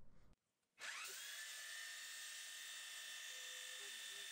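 The spindle of a small CNC milling machine with a quarter-inch three-flute carbide end mill spinning up, starting a little under a second in with a quickly rising whine that levels off into a steady high whine.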